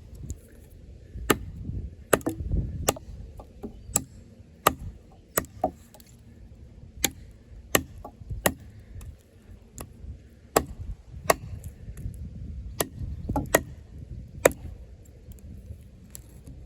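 Off-Grid Caiman XXL, a large 7-inch D2-steel bowie knife, chopping into a hard log: a run of sharp chopping strikes, about one every three-quarters of a second, with a few short pauses.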